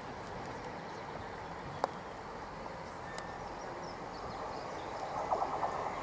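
GWR Class 165 Networker Turbo diesel multiple unit approaching along the track, faint at first, its rattling growing louder about five seconds in as it nears.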